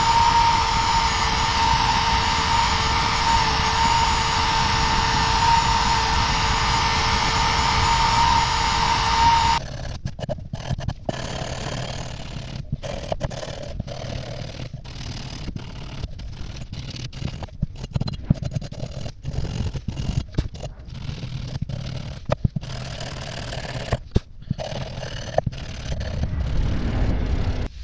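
Power drill spinning a wire wheel against a metal part, a loud steady whine with a hiss; it stops suddenly about ten seconds in. After that, a small brass wire brush scrubs the part by hand in short, irregular scraping strokes.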